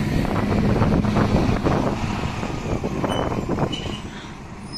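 City bus engine running as the bus drives past and away, loud at first and fading over the last couple of seconds. Wind buffets the microphone.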